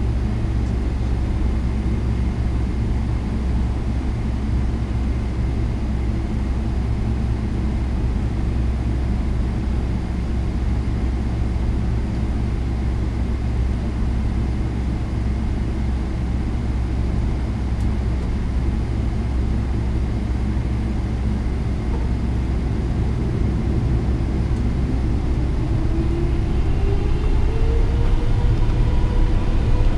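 Steady low rumble inside the cabin of a Boeing 777-300ER on the ground. In the last several seconds its GE90 engines spool up with a whine that rises in pitch and a slight growth in loudness.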